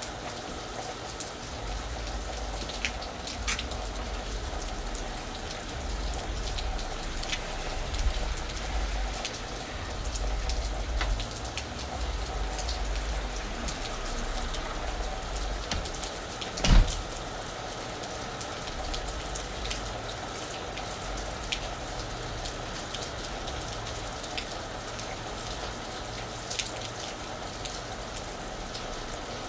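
Steady rain falling on a roof, many separate drops ticking on it over a continuous hiss, with a low rumble that comes and goes. One loud thump about halfway through.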